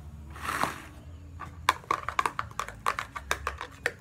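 Homemade glue slime being squeezed and kneaded in the hands, giving a quick irregular run of sharp sticky clicks and pops, several a second, from about a second and a half in. A short rustling noise comes just before, about half a second in.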